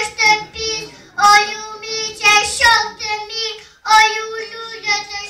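Young children singing a song in sung phrases separated by brief breaks.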